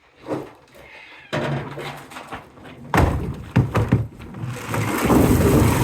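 Hard knocks and thuds, then a loud, dense clatter from about four and a half seconds in: a load of harvested maize cobs being tipped into storage in a barn.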